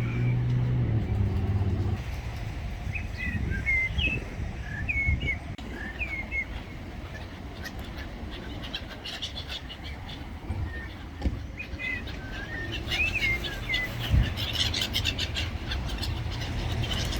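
Small birds chirping in short, quick notes that bend up and down, in two runs, one about three seconds in and one about twelve seconds in, over a low steady rumble. A low humming sound at the start stops about two seconds in.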